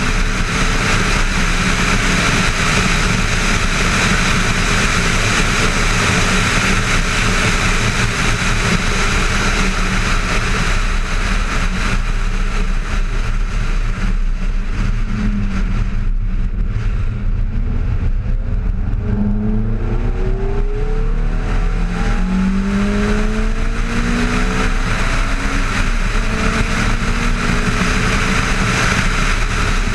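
Ferrari F430's V8 engine running at track speed, heard through heavy wind rush on a camera mounted on the car's front wing. About halfway through the wind eases for a few seconds, then the engine note climbs several times as the car accelerates through the gears.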